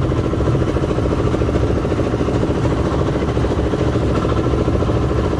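Engine-driven air compressor running steadily with an even, rapid beat, pumping breathing air down the hose to a hookah diver's regulator.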